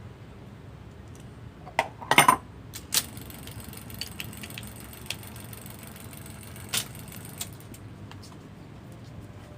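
Scattered metallic clinks and knocks of parts and tools being handled during typewriter repair, with a quick loud cluster about two seconds in and single knocks a second and nearly five seconds later, over a steady low background hum.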